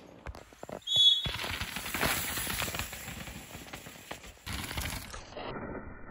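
Mountain bike ridden down a rough trail: tyres on dirt and roots and the bike rattling, with a short high squeal about a second in. The sound turns duller about five seconds in.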